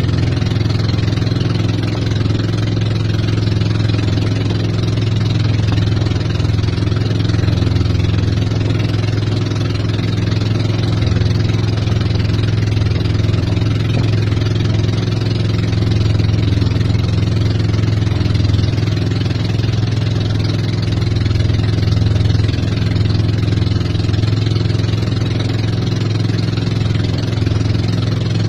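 Outrigger motorboat (bangka) engine running steadily under way, a constant low drone with no change in speed, over the rush of water along the hull.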